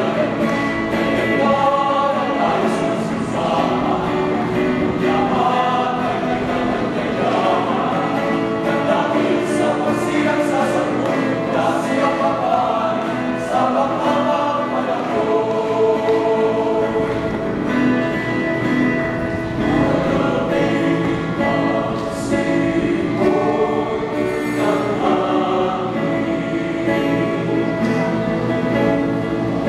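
Small all-male choir singing a cappella, several voices holding sustained notes in harmony.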